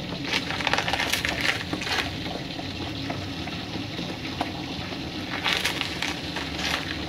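A wok of thick peanut sauce cooking, with two spells of rough scraping and crackling, about a second in and again near six seconds, over a steady low hum.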